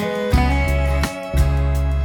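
Background music: strummed acoustic guitar over a steady bass line.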